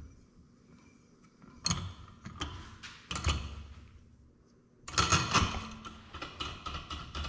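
Metal hand tools and parts being handled, with a few separate clinks and knocks. From about five seconds in comes a quick run of clicks from a ratchet wrench being worked.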